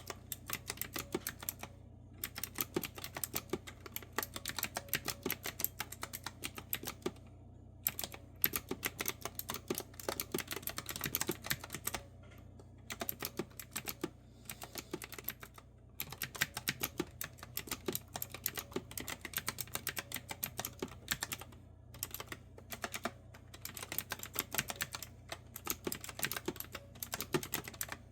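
Clicky retro-style keyboard with round keys being typed on: fast runs of crisp keystrokes in bursts of several seconds, broken by short pauses, over a faint steady low hum.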